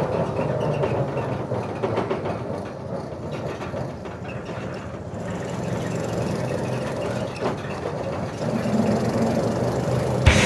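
Steady low rumble of road and wind noise from a moving vehicle, dipping a little partway through, with a single short thump near the end.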